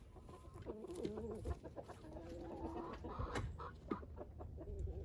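A penned flock of young laying hens clucking and calling, several birds at once, with a sharp click or knock about three and a half seconds in.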